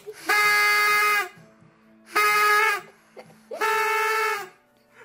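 Paper party horn held in a puppy's mouth and blown, giving three honks at one steady pitch, each lasting about a second or a little less, with short gaps between.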